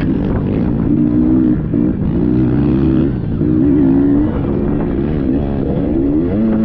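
Dirt bike engine running under load on an off-road trail, its pitch rising and falling over and over as the throttle is worked, over a steady low rumble.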